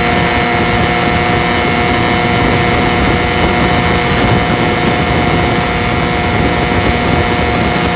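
Small outboard motor with a home-made modified gear case running hard at a steady high pitch, water rushing and spraying past the lower unit as the aluminium boat planes at speed.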